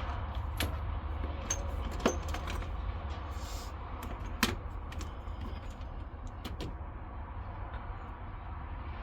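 Metal hand tools clinking and rattling, with two sharper knocks about two seconds and four and a half seconds in, over a steady low hum.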